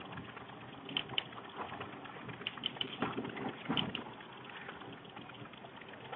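Faint chalk on a chalkboard: a few short taps and scrapes as lines are drawn, over low room hiss.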